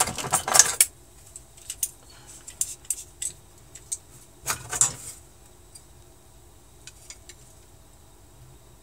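Carbon-fibre drone frame plates clattering on a tabletop as they are handled, loudest in the first second, followed by scattered small clicks and taps as a digital caliper is picked up and closed on a plate.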